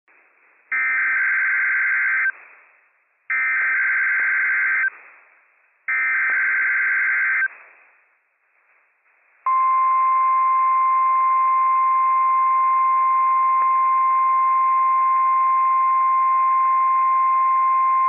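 NOAA Weather Radio alert test signal. First come three short bursts of SAME digital header data, each about a second and a half long and about a second apart. Then, about nine and a half seconds in, the steady 1050 Hz warning alarm tone starts and holds. It is heard over a radio receiver with a light hiss.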